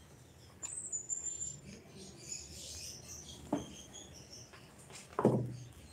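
High-pitched chirping in short broken calls at several pitches. Twice a brief sound drops sharply in pitch, the second, near the end, the loudest.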